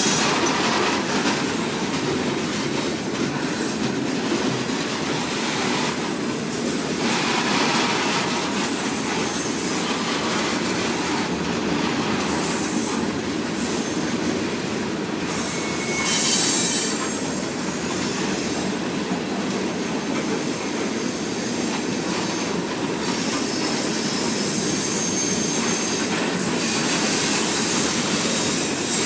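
Freight train cars rolling past, with a steady rumble of wheels on rail and flange squeal that rises into louder high-pitched squeals about halfway through and again near the end.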